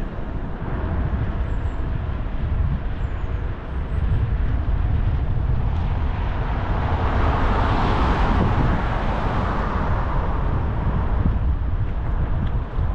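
Steady wind rumble on the microphone from riding a bicycle along the road, with an oncoming car passing whose noise swells and fades about eight seconds in.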